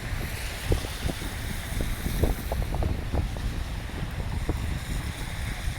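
Snowstorm wind buffeting the microphone: a steady low rumble and hiss, with many short irregular knocks.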